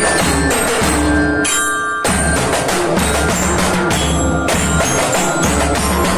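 Drum band playing: bass drums and snare drums keep a steady beat under a bell-like melody. The drumming thins out briefly about one and a half seconds in, then the full band comes back in together.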